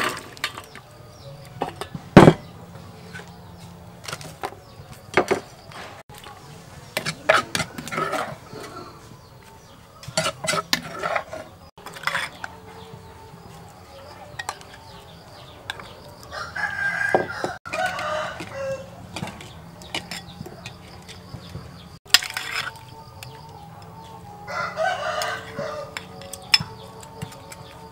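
A rooster crows twice, midway and again near the end, each call lasting about two seconds. Between the calls come scattered clinks and knocks of a ladle and food against a metal serving tray, the loudest a single sharp knock about two seconds in.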